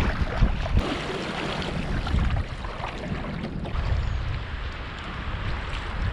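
Wind buffeting the microphone over the sound of water around a paddled canoe or kayak, with a low rumble and a few faint splashes.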